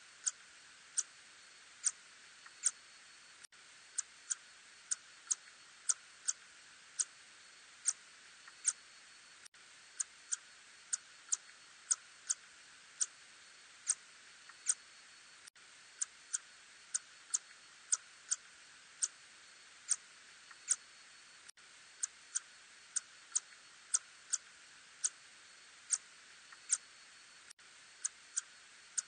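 Little tube-nosed bat (Murina ussuriensis) calls in a recording, made audible as a run of short sharp clicks, one to two a second at uneven intervals, over a steady hiss.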